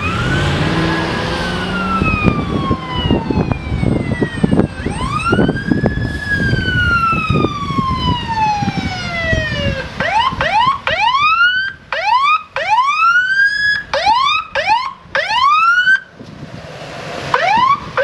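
Emergency vehicle electronic siren in a slow wail, each note rising and then falling over about five seconds, switching about ten seconds in to a fast yelp of quick rising sweeps, about two a second, which breaks off for a moment near the end before resuming.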